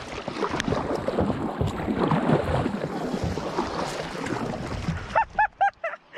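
Kayak paddle strokes dipping and splashing through the water, a steady uneven rush with wind on the microphone. Near the end, a quick run of about five short pitched animal calls.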